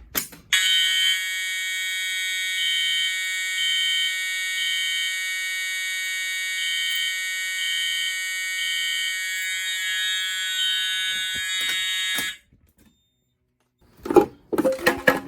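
Fire alarm horns sounding: a steady buzzy horn tone, with a second horn beeping over it in the temporal code-3 pattern of three beeps and a pause. The alarm cuts off suddenly about 12 seconds in, and a few irregular knocks follow near the end.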